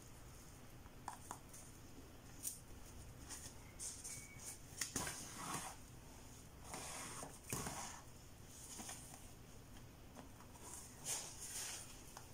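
Irregular soft swishes and rustles of a needle and thread being pulled through a wig cap and curly hair wefts during hand-sewing, with a few light clicks.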